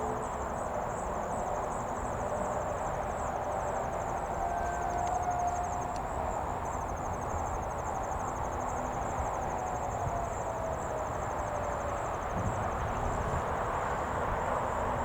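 Insects trilling steadily in a fast, high-pitched pulse, over a low steady rumble. A faint tone comes in about four seconds in and slides down in pitch before fading out.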